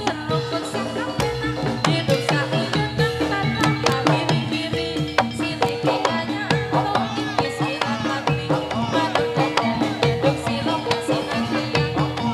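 Javanese gamelan music accompanying a jathilan dance: a hand drum beats a steady rhythm under metallophones repeating a short pattern of ringing notes.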